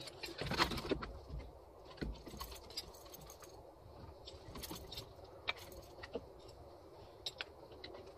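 Scattered light metallic clicks and clinks of a hand wrench working the cylinder head bolts on an outboard powerhead.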